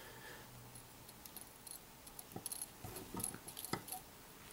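Mostly quiet room tone with a few faint, scattered clicks and light taps about halfway through: small handling noises of hands, thread and tools at a fly-tying vise.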